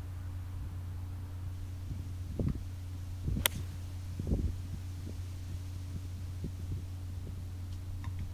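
A single sharp click about three and a half seconds in: a 6-iron striking a golf ball off the tee. Under it, a steady low hum with a few dull low thumps.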